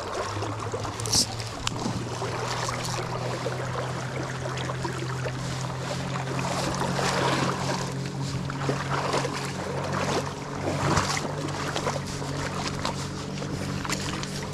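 A steady low motor drone over rushing river water, with splashing near the bank as a hooked sockeye salmon thrashes while being brought in on a fly rod.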